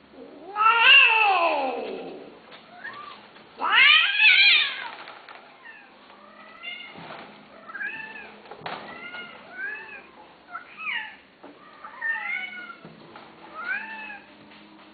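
Himalayan (colourpoint Persian) cat yowling in mating season: two long, loud yowls in the first five seconds, the first sliding down in pitch, then a run of shorter meows about once a second.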